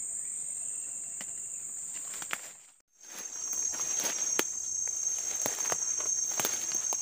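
Forest insects droning steadily at a high pitch. The sound drops out briefly about three seconds in, then footsteps through leaf litter and rustling undergrowth join the insect drone.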